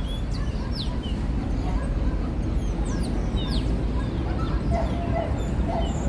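Small birds chirping in short, high, downward-sweeping calls over a steady low rumble. A dog starts yipping about three-quarters of the way through.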